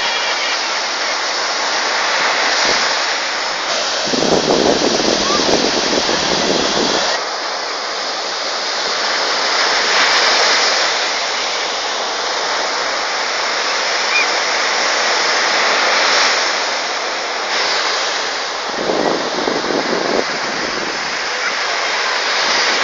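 Surf breaking on the beach: a steady rush of waves that swells and ebbs every few seconds. A louder low rumble comes in twice, about four seconds in and again near the end.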